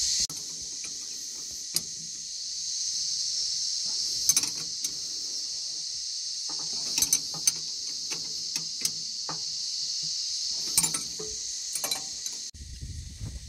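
Scattered metallic clinks and clicks of a hand spanner on bolts at a steel hydraulic tank, over a steady high-pitched insect drone.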